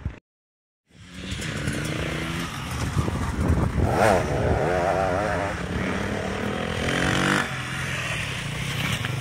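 Enduro dirt bike engines running and revving on a muddy farm-field track, the pitch rising and wavering as the bikes climb through the gears and ride past. A brief dropout near the start.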